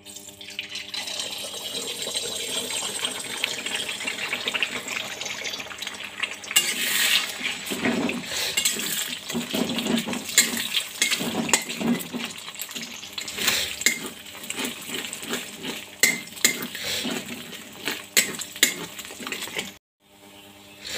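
Eggs hitting hot oil in a metal kadai and sizzling steadily. From about six seconds in, a steel spatula scrapes and knocks against the pan as the eggs are scrambled, over the continuing sizzle.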